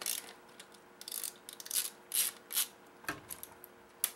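Screwdriver working screws out of a plastic toy's housing: about five short scrapes of the metal tip and hard plastic shell, then a sharper click a little after three seconds.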